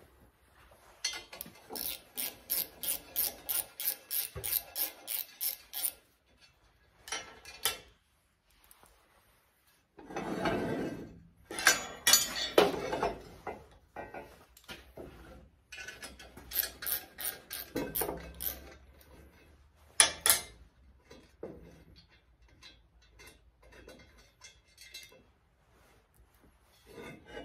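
Ratchet wrench clicking in two runs of about three strokes a second as bolts come off the bracket on a cast-iron exhaust manifold. Between the runs there is metal scraping and handling, and a sharp knock about 20 seconds in.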